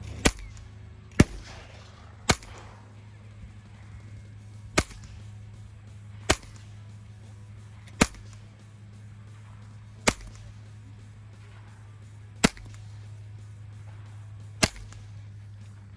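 A scoped Ruger .22 rifle firing .22 Long Rifle rounds: nine single sharp cracks, one to two and a half seconds apart, shooting the magazine empty.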